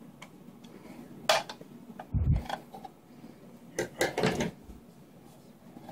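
Clicks and knocks of a steel rifle magazine and a folding knife being handled on a tabletop: a sharp click a little over a second in, a dull thump about two seconds in, and a cluster of metallic clatter around four seconds.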